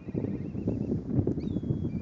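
Wind buffeting the microphone: a gusty low rumble that rises sharply at the start and stays loud.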